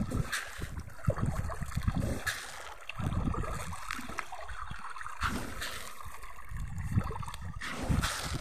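Pond water splashing and gurgling as fish churn the surface taking scattered feed, with several sharper splashes.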